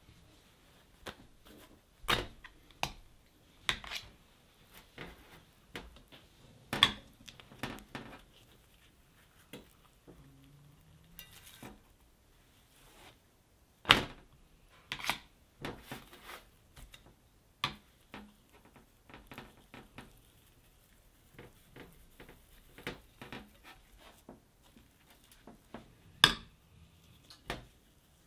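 Kitchen handling sounds: plates and a spoon clinking and knocking on a stainless steel counter in scattered single clatters, the loudest about halfway through and again near the end.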